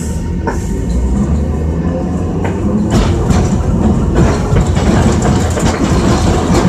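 Iyo Railway Moha 50 streetcar running on street track, heard from inside the driver's cab: a low rumble of motor and wheels that grows a little louder after about three seconds, with a few sharp clicks of the wheels over rail joints.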